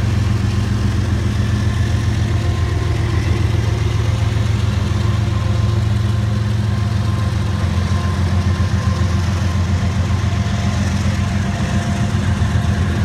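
Two CSX GE ES44AH diesel locomotives, GEVO-12 V12 engines, running with a steady low drone as they pass at close range.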